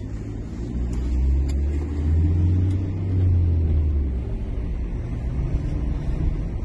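Low engine rumble that swells about a second and a half in, holds, then eases off after about four seconds.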